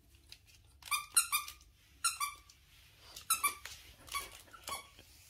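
Squeaker inside a plush dog toy squeaking, about eight short, high squeaks all at the same pitch: three in quick succession about a second in, then single squeaks spaced out to near the end.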